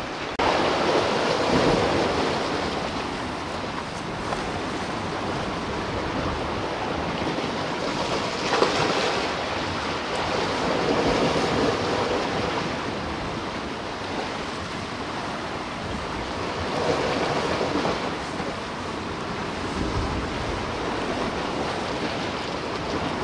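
Sea surf washing against a rocky shore: a steady rush of waves that swells and eases every few seconds.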